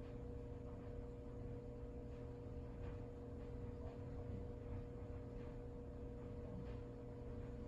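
Faint steady hum, a constant mid-pitched tone over a low rumble, with a few very soft ticks: quiet room tone.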